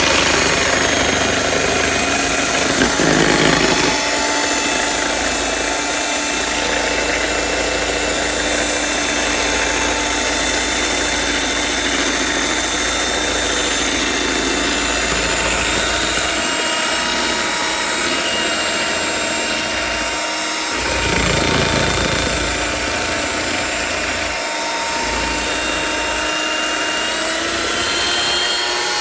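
LILPARTNER 450 W electric hand mixer running steadily with a motor whine, its stainless steel beaters whisking batter in a bowl.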